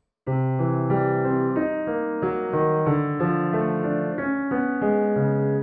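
Piano playing a regular eighth-note arpeggio riff in the low register: rising and falling broken triads on C–E♭m and D–C♯7(no3), the notes ringing into each other and dying away at the end.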